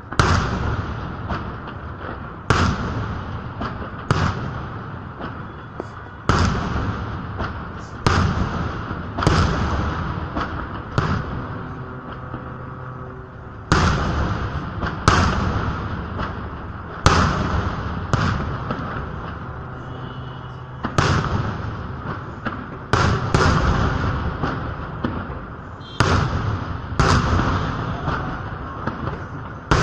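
Aerial firework shells bursting in a large display: sharp bangs every one to two seconds, each followed by a long fading rumble.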